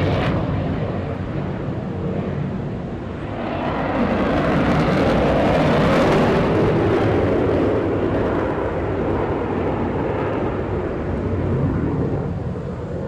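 Jet aircraft flying past, the engine noise swelling to its loudest about six seconds in and then slowly fading.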